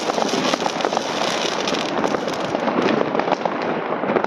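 New Year's fireworks and firecrackers going off in a dense, unbroken stream of overlapping pops and cracks.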